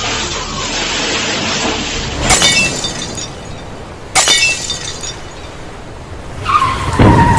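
Storm noise broken by two sudden sharp cracks about two seconds apart, each with a brief ringing like shattering glass. Near the end a steady tone sounds over loud storm noise.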